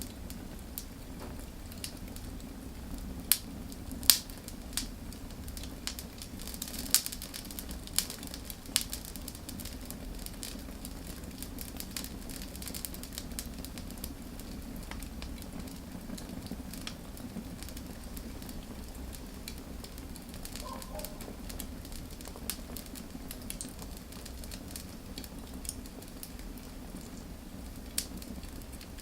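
Wood fire burning: scattered sharp crackles and pops over a steady low rumble of the flames, the loudest pops coming in the first nine seconds.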